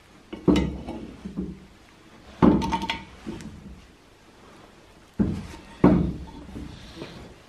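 Steel pipe wrench clanking and clinking against a galvanized elbow fitting as the fitting is tightened onto a threaded port of a steel cylinder. There are four main metallic clanks with brief ringing, plus lighter clinks between them.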